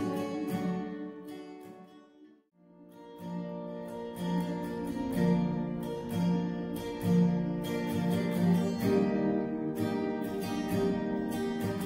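Music fades out to near silence about two seconds in, then a lone acoustic guitar starts a slow picked intro, one chord about every second.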